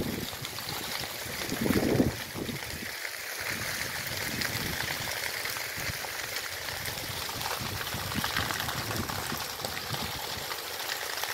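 Grass fire burning: a steady rushing crackle of burning vegetation with many small sharp pops. About two seconds in comes a brief louder low burst of noise.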